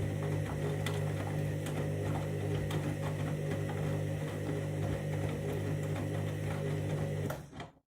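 Candy washing machine running its main wash: a steady low motor hum with the drum turning and a few light clicks. It fades out near the end.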